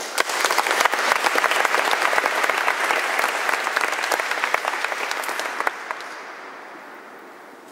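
Audience applauding: the clapping starts suddenly, stays strong for about five and a half seconds, then thins out and fades away.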